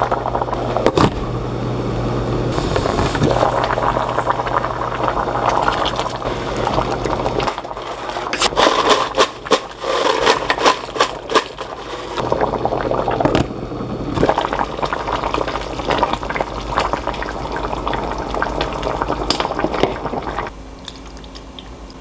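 Kitchen work sounds: water running, with clinks and knocks of dishes and utensils.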